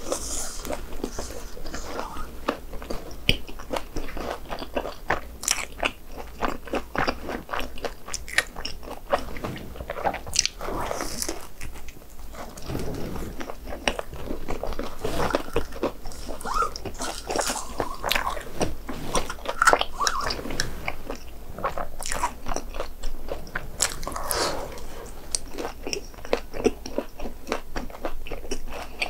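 Close-up chewing and biting of crispy fried snacks, dense irregular crunches.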